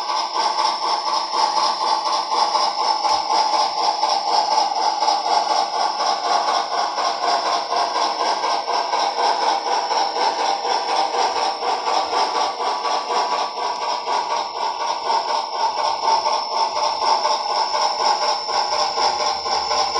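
Soundtraxx Tsunami2 sound decoder in an HO scale brass Western Maryland 4-6-6-4 Challenger model playing a running steam locomotive's exhaust chuffs through the model's small speaker, in a fast, steady rhythm with no deep bass.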